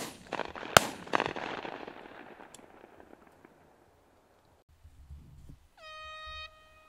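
Shotgun shots at a flying pheasant: two loud reports less than a second apart, then a few fainter shots and a long rolling echo. Near the end an air horn starts a long steady note, the signal to swap shooting rotations after a 15-bird interval.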